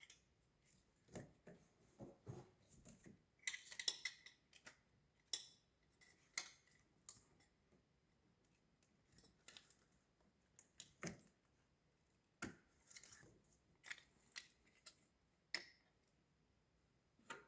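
Faint, scattered metallic clicks and clinks of hand tools and small screws being handled while brackets are fastened down in an engine bay.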